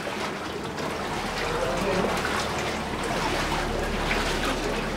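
Water trickling and running along the channel of an underground aqueduct tunnel, a steady rushing noise. Faint voices in the middle and a low steady hum from about a second in.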